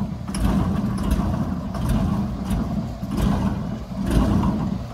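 Engine running steadily with a low rumble, falling away near the end.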